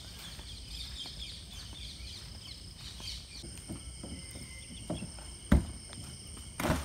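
Outdoor ambience of birds chirping and a steady insect whine over a low wind rumble. A sharp thump comes about five and a half seconds in, and a smaller knock near the end.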